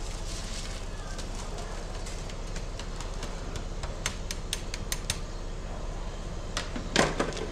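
A metal skimmer ladle tapping against a plastic colander and the rim of a metal pot to knock out rice: several short sharp taps about four to five seconds in, then one louder knock near the end, over a steady low background rush.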